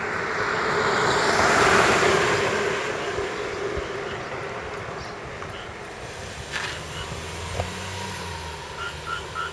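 A passing vehicle: a broad rushing noise swells to a peak about two seconds in, then slowly fades. Three short high chirps come near the end.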